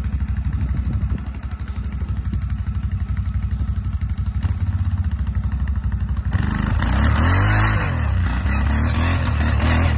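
Quad ATV engine idling with a fast, even beat, then about six seconds in it revs hard, rising and falling in pitch, as the ATV tries to drive out of deep snow with its wheels spinning.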